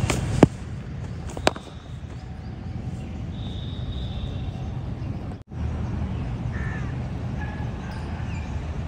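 A cricket bat striking the ball with a sharp crack about half a second in, followed by a lighter knock about a second later. Birds call in the background in the second half.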